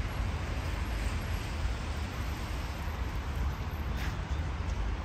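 Steady city street ambience: a constant low traffic rumble with an even hiss over it.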